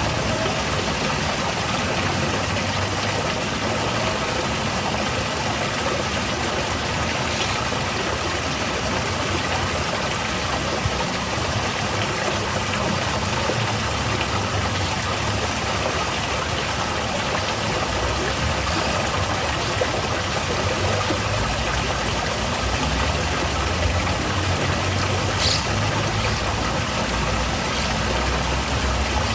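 Steady rushing of water falling in a small garden waterfall, with a low rumble that grows stronger in the second half.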